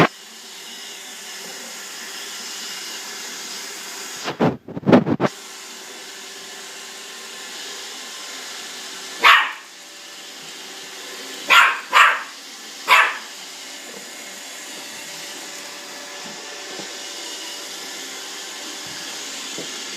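Roomba robot vacuum running with a steady whir and hum, while a Jack Russell terrier gives a single bark and then three quick barks in the middle of the stretch. A loud burst of thumps comes about four and a half seconds in.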